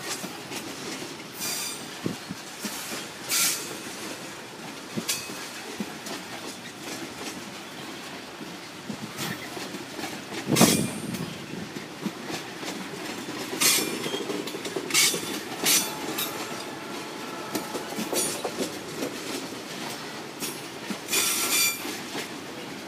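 Coal train wagons rolling past: a steady rumble broken by many short, high-pitched wheel squeals. A loud clank comes about ten seconds in.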